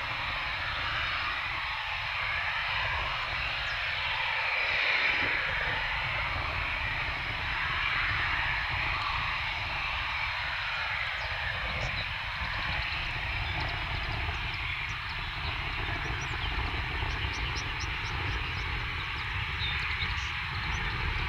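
Eurofighter Typhoon jets' twin EJ200 turbofans running, a steady jet rumble that swells slightly a few seconds in, as a pair sets off on a formation takeoff.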